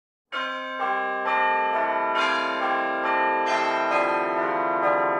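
Church bells ringing in a sequence, about two strikes a second, each bell ringing on and overlapping the next.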